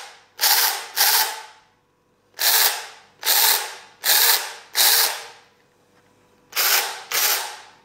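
24 V battery mini chainsaw triggered eight times in short bursts, running with no load: each time the motor and chain spin up sharply and then wind down over about half a second.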